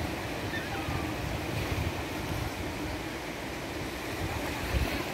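Small waves breaking and washing up a sandy shore, with wind buffeting the microphone in uneven low rumbles.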